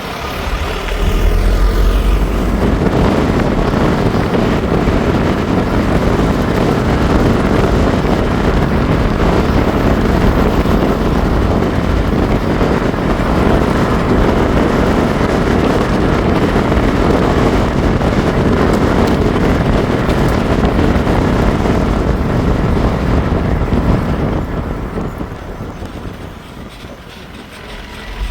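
A motor vehicle running, a steady rumble that swells about a second in and fades away near the end.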